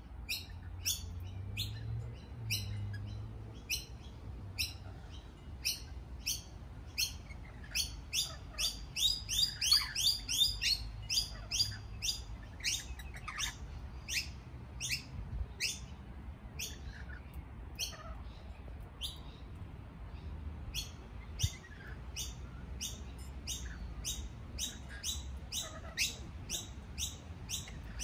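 Lorikeets chattering in a continuous run of short, high-pitched chirps, several a second, thickest and loudest about ten seconds in.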